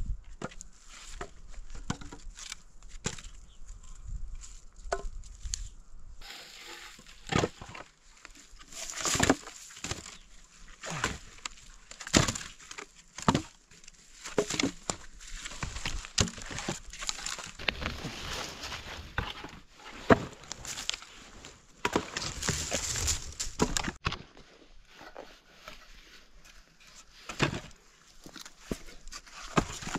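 Split firewood being picked up and loaded into a woven bamboo carrying basket: repeated wooden knocks and clunks as the pieces strike each other and the basket, with rustling of dry brush between them.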